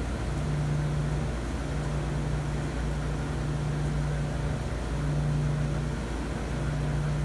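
Dexter commercial triple-load washer tumbling a load of laundry: a steady low motor hum and drum rumble, the hum dropping out briefly every second or so.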